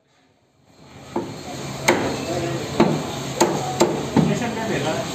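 Meat cleaver chopping chicken pieces on a round wooden chopping block: about six sharp chops at an uneven pace, the first about a second in.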